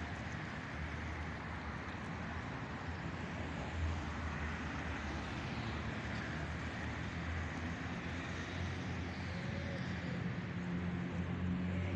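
Steady outdoor town ambience: an even hiss with the low rumble of road traffic, which swells somewhat near the end.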